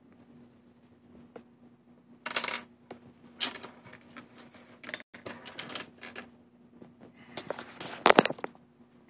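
Plastic marker pens clicking and clattering as they are capped and handled, in several short bursts, the loudest near the end.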